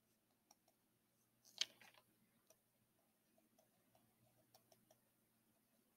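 Near silence with faint, scattered ticks of a stylus tapping on a tablet screen during handwriting, and one louder tick about a second and a half in.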